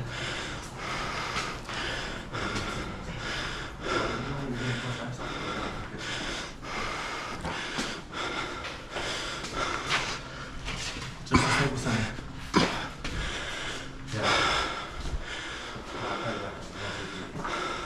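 A person breathing hard through nose and mouth while climbing stairs, with steady footfalls on the steps. Two sharper knocks come about two-thirds of the way in.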